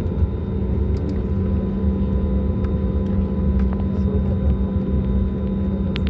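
Cabin noise inside a taxiing Airbus A320neo: a steady low rumble with an even engine hum.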